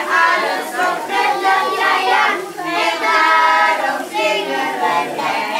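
A group of people singing together, with children's voices standing out.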